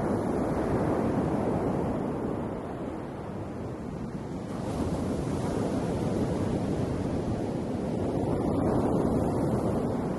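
Ocean waves breaking and washing in a steady surf, swelling louder twice: in the first couple of seconds and again near the end.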